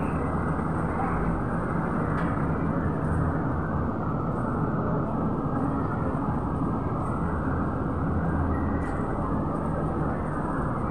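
Steady city street noise: a constant low rumble of road traffic with no distinct events.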